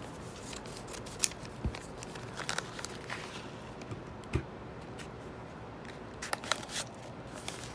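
A small item's packaging being handled and opened: scattered crinkles, rustles and a few sharp clicks of plastic wrapping.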